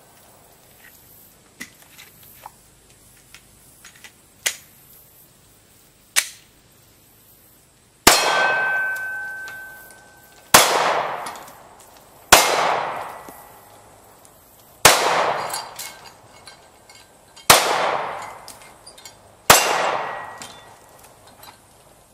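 Six 9mm shots from a Glock 19 Gen 4 pistol, starting about eight seconds in and coming every two seconds or so. Each shot is followed by a clang from a steel target that rings and dies away over a second or two. Two fainter sharp knocks come earlier.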